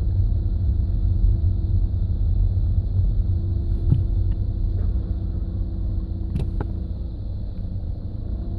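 Low groaning rumble from the front of a 2009 Audi A3 Sportback 2.0 TDI, with a steady hum over it and a couple of light clicks about four and six and a half seconds in. It is the car's unexplained fault noise, which the owner finds comes at low speed near full steering lock with the car in gear and stops instantly when the clutch is pressed.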